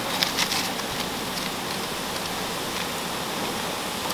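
Whiteleg shrimp grilling on a bed of coarse salt in a foil-lined pan: a steady sizzle, with a cluster of sharp crackles about half a second in.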